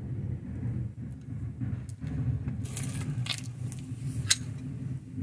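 Metal tools and drum brake parts clinking and scraping by hand: a few short scrapes in the middle and one sharp click near the end, over a steady low hum.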